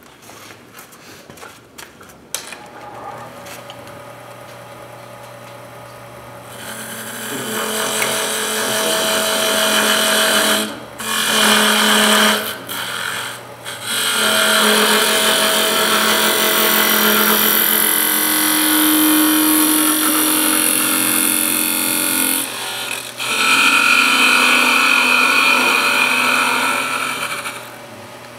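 Wood lathe spinning a turned banksia pod while a rag is pressed against the turning piece to buff on the finish, making a loud rubbing hiss that starts a few seconds in, breaks off briefly twice and stops near the end. The lathe motor hums underneath.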